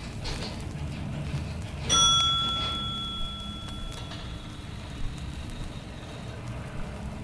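A bell struck once, about two seconds in, ringing with a few clear high tones that fade away over several seconds, over a steady low rumble.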